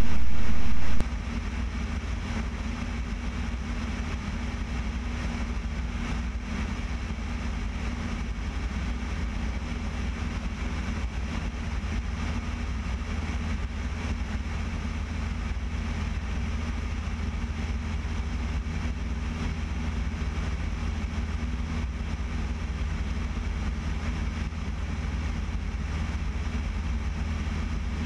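Steady drone of a Piper PA-28-180 Cherokee's four-cylinder Lycoming engine and propeller in level cruise flight. The level steps down once about a second in, then holds steady.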